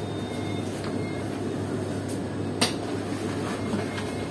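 A large paper chart being handled and hung on a whiteboard: faint paper rustling and one sharp click about two and a half seconds in, over a steady low background hum.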